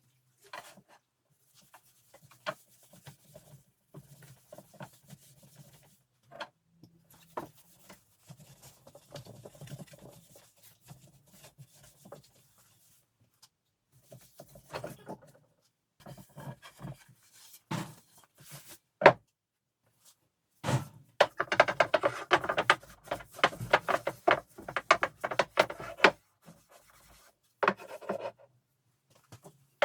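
Hand work on wood: on-and-off rubbing and scraping with scattered taps and knocks, then a run of quick, dense scraping strokes about two-thirds of the way through.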